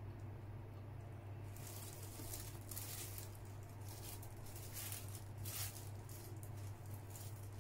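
Clear plastic wrapper around a soft cream bun crinkling and rustling in irregular bursts as the bun is handled, strongest about three and five and a half seconds in, with quiet chewing, over a steady low hum.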